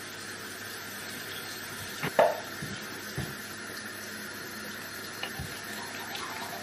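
Tap water running steadily into a bathroom sink, with one sharp click about two seconds in.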